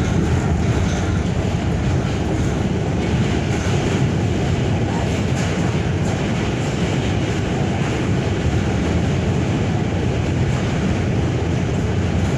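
R46 subway car running over a steel truss bridge, heard from inside the car: a steady, loud rumble of wheels on rail.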